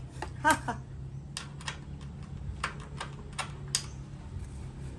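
Small metal clicks and clinks of parts and tools being handled while a cut-off disc is fitted onto a miter saw's blade arbor. One ringing clink about half a second in is the loudest, followed by scattered lighter taps. A steady low hum runs underneath.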